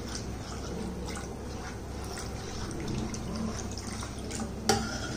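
Milk trickling in a thin stream into a steel pan of thickening flour-and-butter white sauce while a steel ladle stirs it. One sharp clink near the end.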